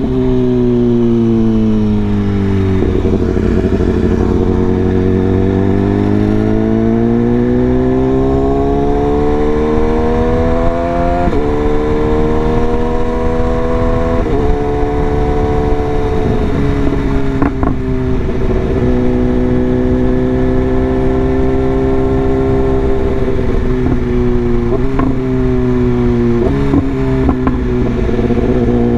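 BMW S1000RR's inline-four engine under way: the revs drop, then climb steadily for several seconds, broken by abrupt pitch steps at gear changes through the middle and again a couple of times near the end, between stretches of steady running.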